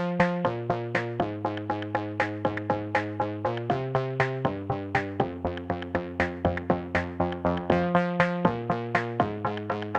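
Electronic background music: a plucked synthesizer figure at a steady pace of about four notes a second over held bass notes that change every second or so.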